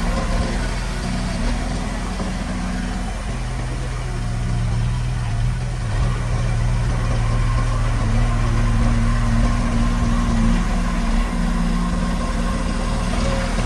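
Diesel engine of heavy earthmoving equipment running steadily, its note shifting a couple of times as it works.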